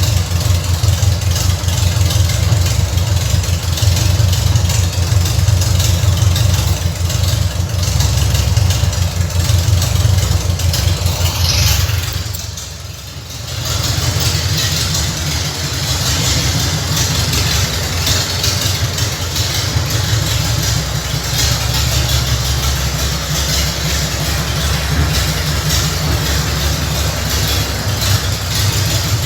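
Chevrolet Opala four-cylinder engine running at idle through a freshly fitted 4-into-2 header with no muffler, giving a deep, pulsing exhaust note. The sound dips briefly about twelve seconds in, then settles back to a steady idle.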